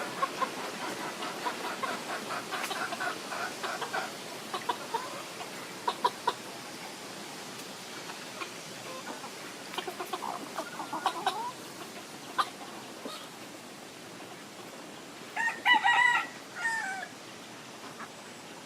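Chickens clucking in short repeated calls, with one louder drawn-out call near the end.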